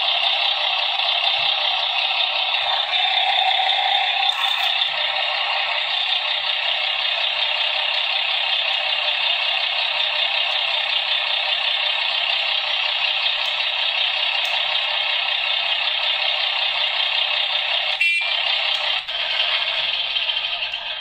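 Simulated truck engine sound from the 1:12 Star 266 model's sound module, played through its small loudspeaker: a steady, thin running sound with no bass. It changes slightly about four seconds in and breaks briefly with a click near the end.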